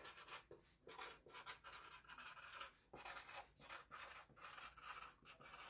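A pen writing on a small cardboard box: faint scratching strokes in short runs broken by brief pauses.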